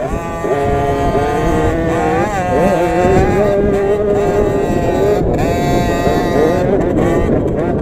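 A KTM SX50's 50cc two-stroke engine running hard under racing load, its pitch holding steady for stretches and then dipping and rising again several times as the throttle changes.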